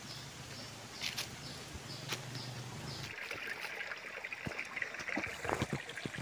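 Shallow stream trickling over stones, starting about three seconds in. Before that, a quiet outdoor background with a low steady hum and a few light clicks.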